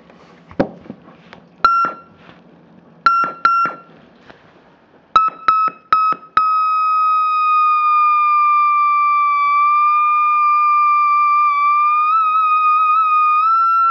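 Circuit-bent optical theremin in an old guitar-pedal case, heard through a small amplifier: a click as it is plugged in, then a run of short beeps as it is switched on and off. From about six seconds in it holds one steady electronic tone that drifts slowly in pitch and wavers, rising slightly near the end as a hand moves over its light sensor.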